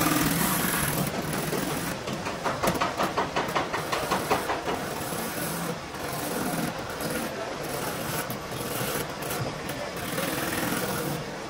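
Handheld rotary buffer with an abrasive disc grinding the rubber inside a car tyre, roughening the inner liner around a sidewall cut so a patch can be applied. A steady whir, with a stretch of rapid rasping pulses, about five a second, from roughly two to four and a half seconds in.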